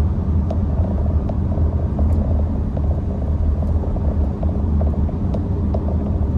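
Steady low rumble of a 2022 Porsche Macan on the move, heard inside the cabin: road and engine noise from its turbocharged EA888 four-cylinder.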